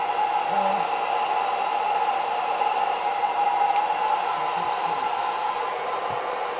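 Handheld hair dryer running steadily: a constant blowing hiss with a steady motor whine.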